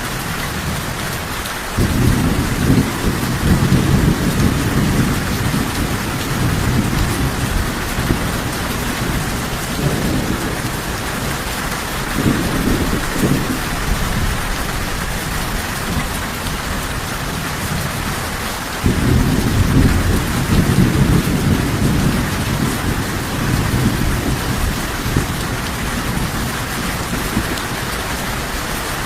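Steady rain with rolling thunder. Long low rumbles swell in about two seconds in and again at about nineteen seconds, with a shorter rumble in between.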